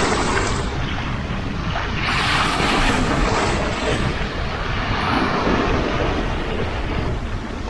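Sea waves washing in, a surge of hiss about every two to three seconds, with wind rumbling on the microphone.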